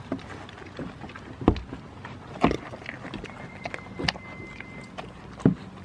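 Goats nosing and bumping against the camera at close range: a handful of sharp knocks and thumps, irregular, with rustling in between.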